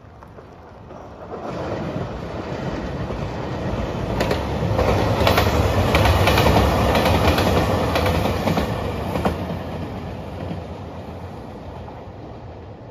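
JR Shikoku 2700 series diesel limited express train passing: its running noise builds, is loudest in the middle with a quick run of wheel clicks over the rail joints, then fades away.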